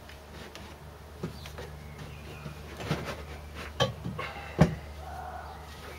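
Metal clunks and knocks as the finned cylinder head of a Wolseley WD2 engine is lifted off and put down, a few separate knocks with the sharpest about three-quarters of the way through, over a steady low hum.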